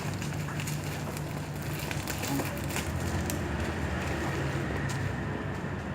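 Plastic shipping package being handled and pulled at while being opened, making a run of small crackles over a steady low hum.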